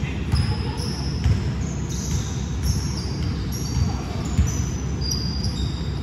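Basketball bouncing on a gym floor in irregular thuds, with short high sneaker squeaks from players running on the court, in a large gym.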